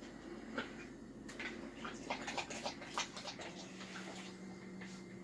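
A puppy making small clicks and taps as she moves about, with a quick run of them about two to three seconds in. A low steady hum comes in about halfway.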